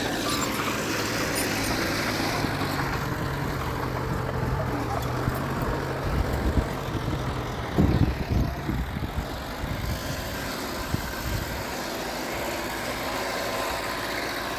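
Diesel engine of heavy earthmoving machinery running steadily, with a cluster of heavy thumps and knocks about halfway through.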